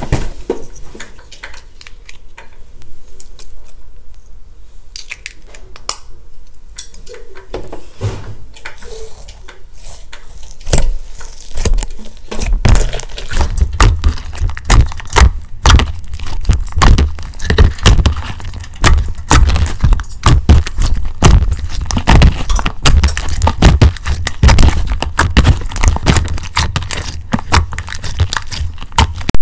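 A hand squishing and kneading a mound of white slime, giving many quick clicks: sparse and quieter at first, then dense and louder from about twelve seconds in.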